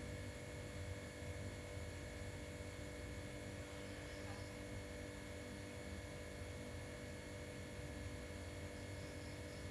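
Steady low hum with a few constant tones above it, unchanging throughout.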